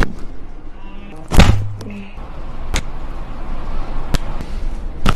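Chiropractic adjustment: a series of about five sharp pops and thuds, roughly one every second and a half, the heaviest about a second and a half in.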